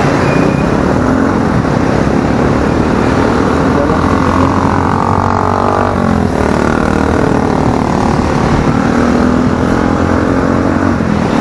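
Motorcycle riding along a road: steady wind rush over the microphone with the engine running underneath. The engine note slides in pitch around the middle.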